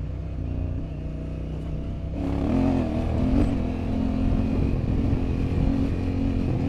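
Honda Africa Twin's twin-cylinder engine running low for about two seconds, then opening up with a couple of brief revs and carrying on at steadier, higher revs.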